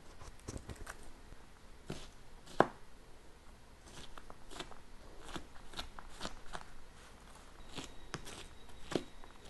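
A French chef knife chopping an onion on a cutting board: a series of short, irregular knocks of the blade against the board, the sharpest about two and a half seconds in.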